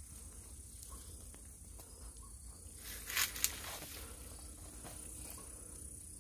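Steady high-pitched insect drone, with a brief rustle and snap of leaves and branches about three seconds in as fruit is reached for in the tree.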